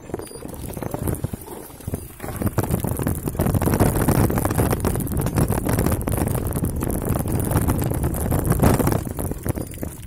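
Mountain bike riding fast over a bumpy dirt trail: wind rushing over the microphone and the bike and camera mount rattling over the ruts. It gets louder about two seconds in and eases off near the end.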